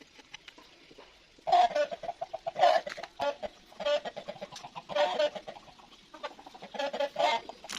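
A chicken clucking: a run of short, loud calls that starts about a second and a half in and repeats roughly every half second.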